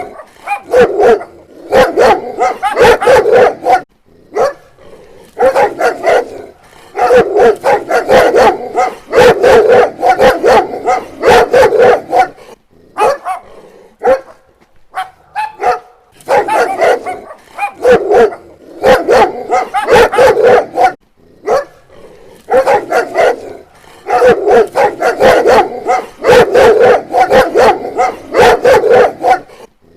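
Dog barking repeatedly in quick runs that last a few seconds each, with short pauses between the runs.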